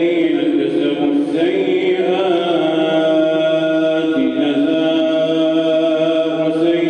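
A man's solo Quran recitation in melodic tajwid style, in the Moroccan Warsh reading, drawn out in long held notes that step to a new pitch a couple of times.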